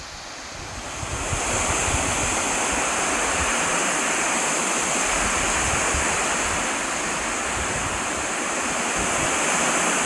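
Waterfall cascading down a rock face: a steady rushing of water, with wind buffeting the microphone. It grows louder about a second in, then holds steady.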